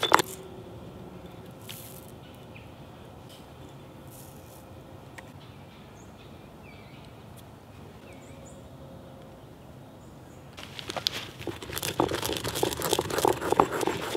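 Stone pestle grinding garlic in a stone mortar, gritty scraping and crunching strokes that stop just after the start. A long quiet stretch follows with a few faint ticks, then grinding resumes about ten seconds in, now working garlic paste with ground spices.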